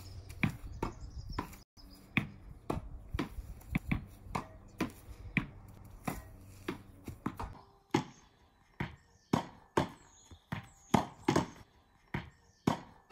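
Tennis ball being rallied: sharp, separate knocks about every half second as the racket strikes the ball and the ball hits the wall and bounces on a plywood board on the ground. A low rumble under the knocks stops about halfway through.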